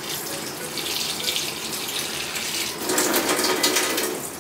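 Kitchen tap running into the sink, water splashing steadily and growing louder and fuller for about the last second and a half.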